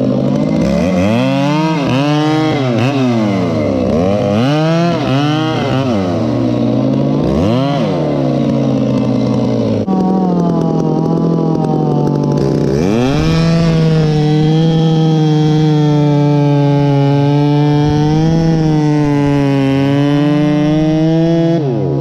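Muffler-modded Stihl chainsaw. For about the first ten seconds it is revved up and down repeatedly. It then runs at steady high revs, wavering slightly under load, while bucking a log, and falls off near the end as the throttle is let go.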